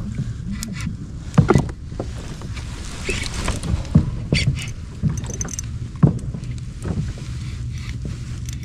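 Kayak afloat on the sea: a steady low rumble of wind and water against the hull, with about four sharp knocks over the middle of the stretch.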